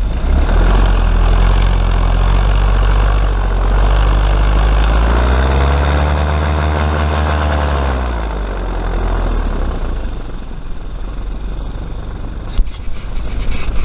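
Airboat's engine and air propeller running hard under throttle, pitch climbing and then falling back about six to eight seconds in, after which it eases off to a lower running level.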